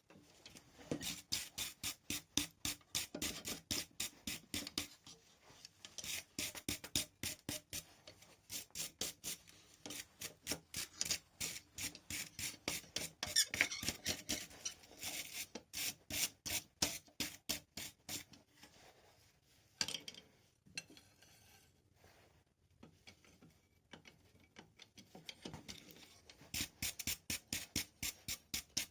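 Rapid back-and-forth scraping strokes of a hand tool on the forged steel hook, about three a second, in long runs with a few seconds' pause past the middle.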